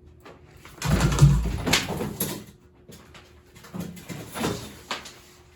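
Heavy tow cable clattering and scraping as it is thrown at a running ceiling fan, loudest about a second in, with a few smaller knocks later. A faint steady buzz, from the fan's rusted motor and worn bearings, runs underneath.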